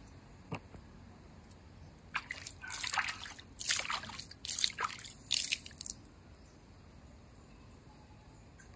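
A hand sloshing and splashing water in a round concrete water tank, in a run of irregular splashes that lasts a few seconds and then stops.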